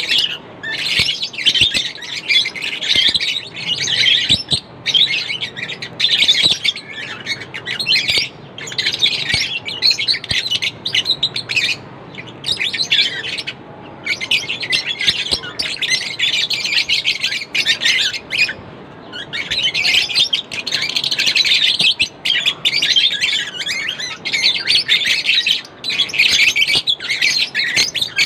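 Lovebirds chirping rapidly and continuously in bursts of a few seconds with brief pauses, high-pitched and shrill.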